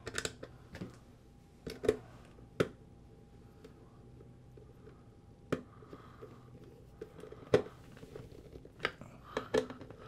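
Scattered light clicks and taps of a hand driver and small screws working against a plastic climate control module housing, as the short screws are turned into the wiring harness connector, backed off first to find the thread so they don't cross-thread.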